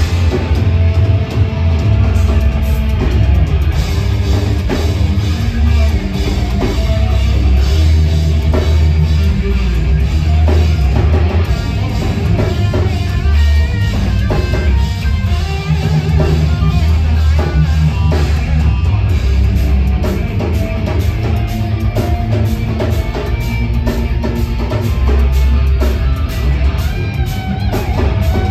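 Heavy metal band playing live, with electric guitars and a drum kit.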